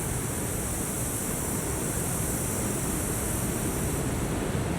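Ocean surf: a steady, even wash of waves with no break.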